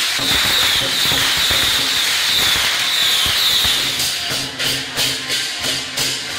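A string of firecrackers going off in a dense, continuous crackle with a hiss. About four seconds in it gives way to clashing hand cymbals and drum strokes from the procession band, about three strokes a second.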